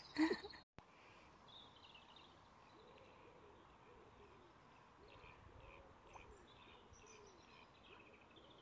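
Faint distant birdsong: light high twittering and a few soft, low cooing calls, after one brief louder call right at the start.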